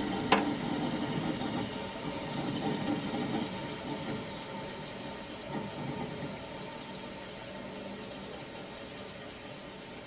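1963 General Electric Thinline through-the-wall air conditioner just switched off: refrigerant flowing on through its coils after the compressor stops, a steady sound that fades away, with one sharp metallic tick shortly after the start.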